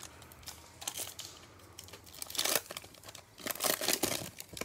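The cellophane wrapper of a Panini Prizm baseball card cello pack being torn open and crinkled by gloved hands, in several crackly bursts that grow loudest in the second half.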